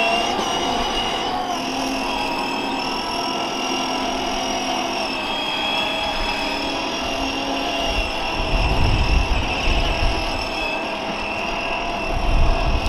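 Children's electric ride-on toy car, a Lamborghini Urus replica, driving under remote control with a steady high whine from its drive motors and gearbox; the pitch shifts slightly about halfway through. A low rumble comes in about eight seconds in and again near the end.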